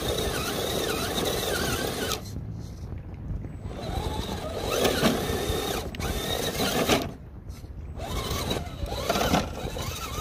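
The FTX Hi-Rock 1/10-scale RC crawler's electric motor and geared drivetrain whining as it crawls over rock, the pitch rising and falling with the throttle. The whine drops away twice for a second or so, then climbs again in short throttle blips.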